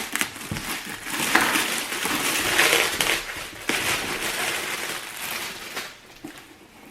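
Packaging being torn open and handled, a dense crinkling and crackling with scattered sharp clicks, dying down near the end.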